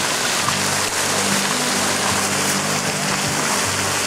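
Steady, loud hiss and splatter of a street fountain's arching water jets falling onto the pavement, with low sustained tones underneath.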